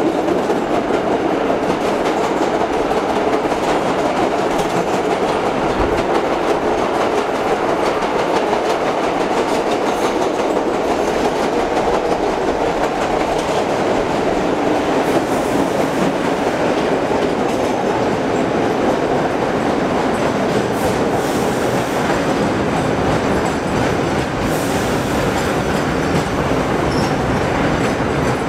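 Vintage 1930s R1–R9 subway cars running, heard from inside a car: a steady, loud rumble of steel wheels on the rails with light clicking over the rail joints.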